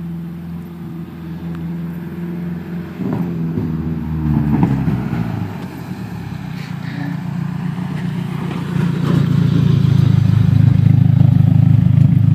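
Loud exhaust of a Toyota Camry driving up, with a brief rev about three to four seconds in. The engine grows louder as the car pulls in close and is loudest and steady near the end.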